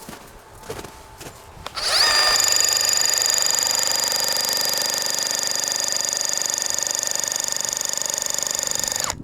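Makita HR400D cordless rotary hammer starting about two seconds in and running steadily with rapid hammering and a steady motor whine, then stopping suddenly near the end.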